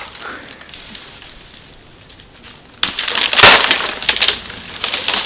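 Wooden branches cracking and snapping as they are broken off a snow-covered tree: a loud crashing break about three seconds in, followed by a few sharper separate cracks.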